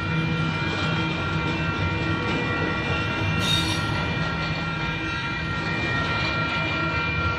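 Union Pacific double-stack intermodal freight cars rolling past at steady speed: a continuous rumble of wheels on the rails. Steady high ringing tones run over it, and a brief hiss comes about halfway through.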